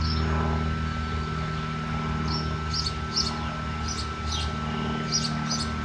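Steady low machine hum with a faint high whine from the running plasma cutter setup, and small birds chirping repeatedly from about two seconds in.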